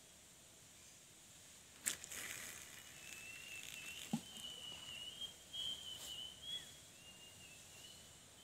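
A sharp click about two seconds in, then a spinning fishing reel being cranked: a thin whirring whine that wavers slightly in pitch with the cranking, over faint ticks and rustle, with a short falling swish about four seconds in.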